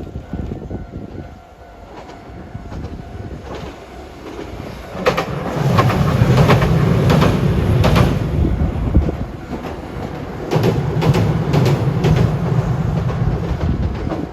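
A train passing close by, its wheels clicking rhythmically over rail joints under a low running rumble. It grows loud about five seconds in and stays loud nearly to the end, easing briefly about ten seconds in.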